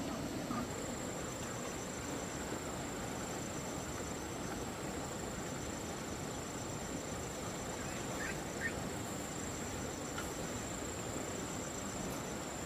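Insects calling: a steady high-pitched buzz with repeated short pulsed trills, over a steady background hiss.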